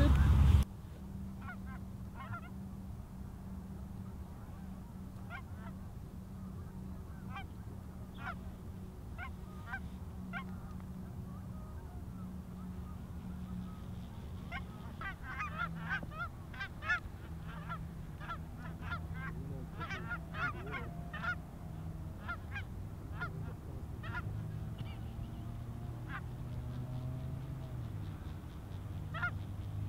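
A flock of Canada geese honking in flight. The calls are scattered at first, come thick and overlapping in the middle, then thin out again.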